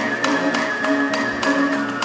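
Central Asian folk ensemble playing: bowed horsehead fiddle and plucked long-necked lute with held notes over a steady galloping beat of taps and a rattle, about three to four beats a second.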